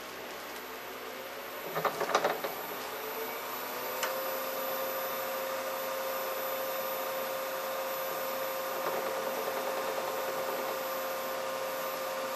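Record Power Herald wood lathe running with a steady whine that rises in pitch and settles about four seconds in as the spindle speed changes. A short rattling clatter comes about two seconds in.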